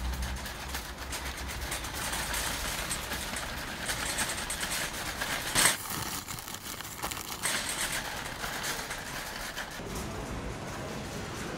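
Wire shopping cart being pushed along, its wheels rolling and the metal basket rattling steadily, with one sharper clank about halfway through.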